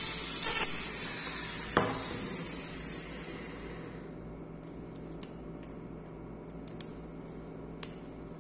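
Dental lab micromotor with a bur grinding the acrylic of an upper retainer in a brief touch near the start, then the motor winding down with a falling whine about two seconds in. Later come a few light clicks as the acrylic retainer is seated on the plaster model.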